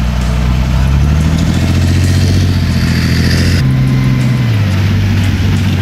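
Heavy vehicle's engine running hard, its pitch stepping up and down, with an abrupt shift in sound a little past halfway.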